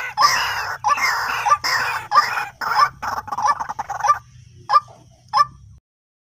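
White-breasted waterhen calls played as a lure recording: harsh, repeated notes about two a second over a low hum, quickening and then stopping about four seconds in, followed by two single notes before the recording cuts off.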